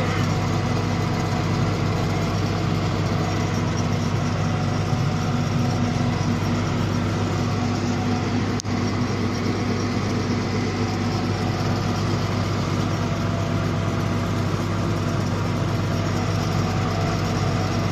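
Engine of a road-building machine running steadily, heard close up from the operator's seat: a constant low drone that does not rise or fall.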